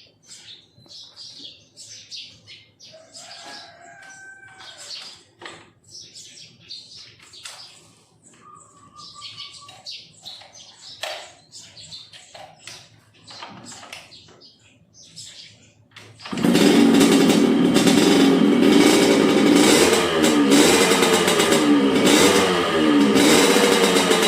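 Birds chirping for about sixteen seconds, then a Yamaha RX-King's two-stroke single-cylinder engine cuts in loud and is revved up and down repeatedly, with the rough, growling note the title calls 'ngorok' (snoring).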